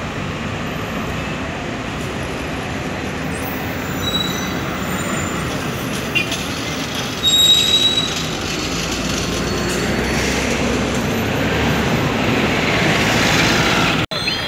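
Busy city street traffic: buses and cars running past, with a couple of brief high squeals and a short louder passing about seven seconds in.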